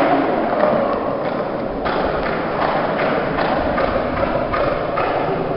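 Skateboard wheels rolling over rough pavement: a steady grainy noise with faint irregular clicks.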